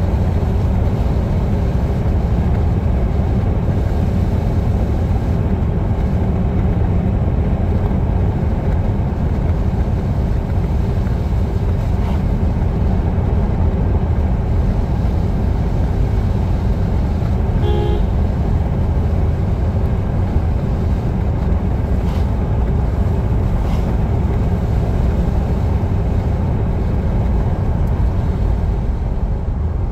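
Steady low engine and road rumble of a car driving at speed, heard from inside the cabin. A short beep sounds once, a little past the middle.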